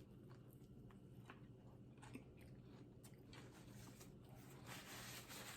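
Faint chewing of a bacon sandwich, with a few soft mouth clicks.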